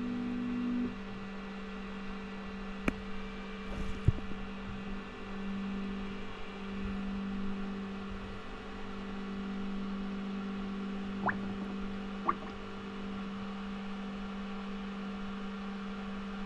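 Elegoo Saturn 4 Ultra resin 3D printer starting its first layer: a steady hum, with a couple of clicks a few seconds in and two brief rising whirs near the end.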